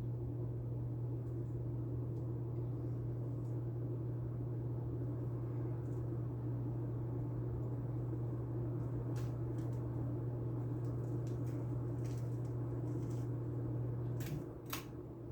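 Harbor Breeze Rocket ceiling fan running with a steady low motor hum. Near the end two sharp clicks sound, and the hum drops after the first of them.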